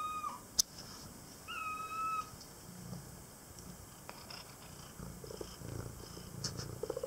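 Domestic cat purring close to the microphone while begging for food, with two short, high-pitched meows in the first two seconds.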